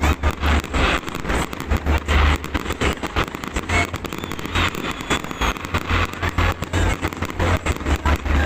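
Fireworks going off in rapid succession: a dense, continuous barrage of sharp bangs and crackling pops, several a second, over a deep low rumble.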